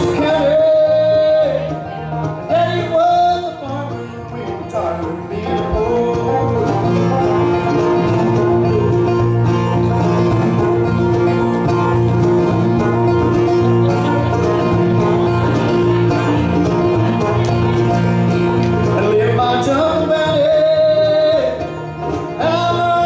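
Live bluegrass band playing: acoustic guitar, banjo and mandolin, with a man singing near the start and again near the end.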